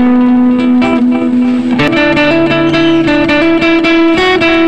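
Background instrumental music, held notes changing every second or two over light plucked strikes.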